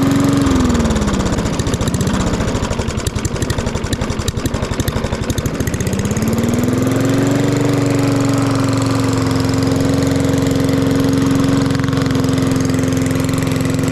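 Small single-cylinder lawn mower engine fitted with a straight-through aftermarket muffler. Its speed drops about half a second in and stays lower for a few seconds, then it revs back up at about six seconds and holds steady at high speed.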